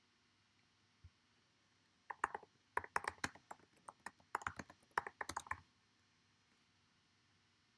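Typing on a computer keyboard: a quick run of key clicks lasting about three and a half seconds, starting about two seconds in, after a single faint click about a second in.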